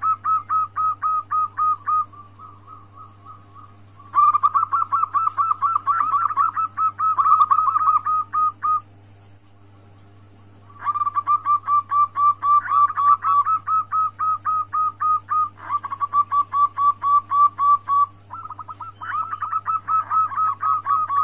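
Female zebra dove (perkutut) calling to a male: runs of short, quick cooing notes, about five a second, in bouts of several seconds. The bouts break off about two seconds in and again near the middle. A high insect chirp repeats steadily behind it over a low hum.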